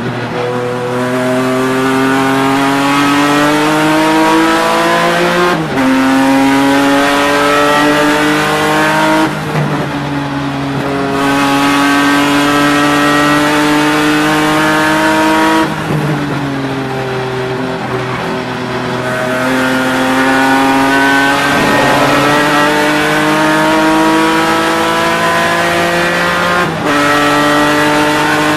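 BMW E36 race car's engine heard from inside the cabin, pulling hard through the gears. Its pitch climbs steadily and drops sharply at each upshift, three times. It eases off twice in between, for corners.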